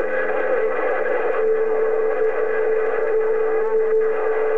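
CB radio receiver on channel 6 (27.025 MHz) carrying several stations keyed up at once: a jumble of warbling, gliding tones, with a steady whistle that comes in about a second and a half in and holds.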